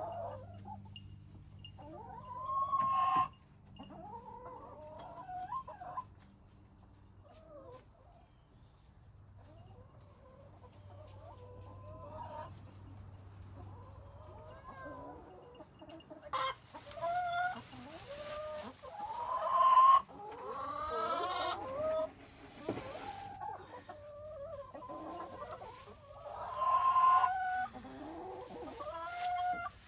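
Backyard hens clucking and squawking in scattered bursts, sparse at first and busier in the second half, with a couple of sharp knocks partway through.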